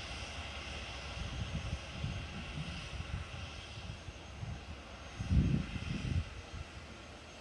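Electric train, led by an E464 electric locomotive, moving away along the line, a steady distant rumble and hiss that fades as it recedes. Low rumbling surges come and go, loudest about five seconds in.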